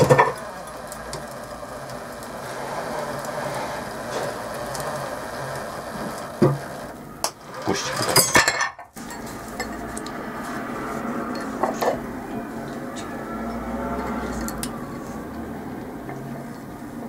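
Car windscreen-wiper motor running under load, winding a bicycle chain over its sprocket to hoist cast-iron weight plates, with the chain links clinking. Sharp metal knocks come about six and a half seconds in and as a loud cluster between seven and eight and a half seconds; the sound cuts out sharply for a moment, then the motor runs on steadily.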